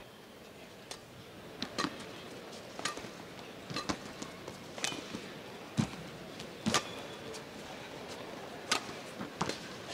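Badminton rackets striking a shuttlecock in a rally: a run of sharp hits roughly a second apart over a low hall murmur.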